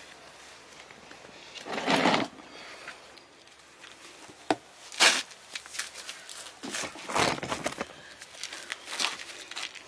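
Hoof trimming on a horse: a few short, irregular scrapes, the loudest about two seconds in, with scattered small clicks between them.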